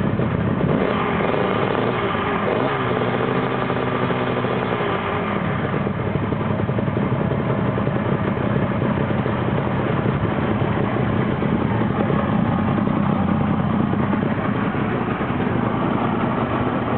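Suzuki RG500 Gamma's two-stroke square-four engine idling steadily.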